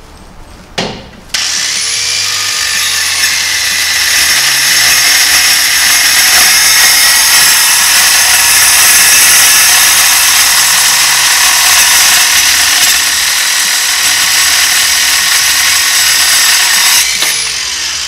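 Eastwood mini metal saw starting with a click and cutting through 3/8-inch-thick metal stock: a loud, steady, high-pitched cutting noise for about fifteen seconds. It ends with the blade winding down in a falling whine near the end.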